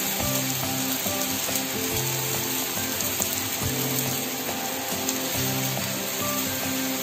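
Ragi rava dosa sizzling steadily on a hot dosa tawa as its edges crisp, with background music playing.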